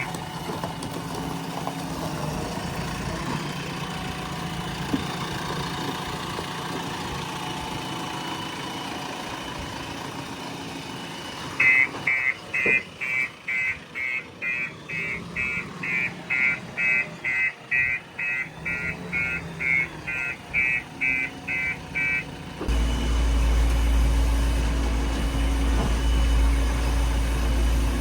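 Diesel engine running steadily; about halfway through, a reversing alarm beeps rapidly and evenly for about ten seconds, the sign of a machine backing up. Near the end, a much louder low engine drone comes in abruptly.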